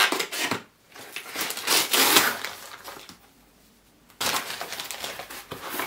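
Rustling and tearing of a small shipping package's wrapping being opened by hand, in a few noisy bursts with a brief lull about two-thirds of the way through, then continued rustling.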